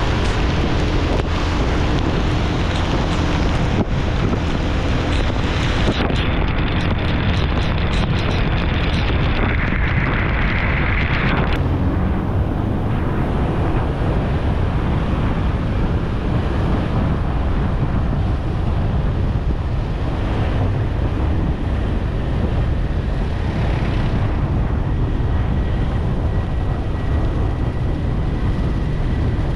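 Wind rushing over the microphone of a moving scooter, with road and engine noise beneath. The high hiss drops away about twelve seconds in.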